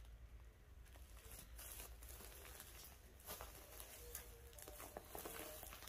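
Near silence: faint scattered rustles and light clicks of footsteps moving over a straw-littered shed floor, over a faint low hum.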